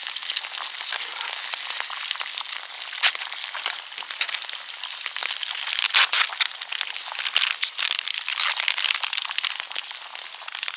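Food sizzling and spitting in a frying pan over an open wood fire, with the fire crackling: a steady hiss full of fine crackles, with louder pops about six and eight seconds in.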